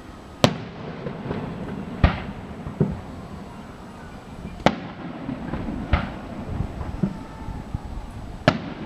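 Aerial fireworks bursting: about six sharp booms at uneven intervals, each followed by a short echo, over a continuous low rumble.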